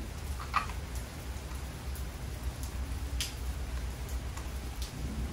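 A few light clicks and taps of a small screwdriver and a plastic handlebar control housing being worked on, one about half a second in and another about three seconds in, over a steady low rumble.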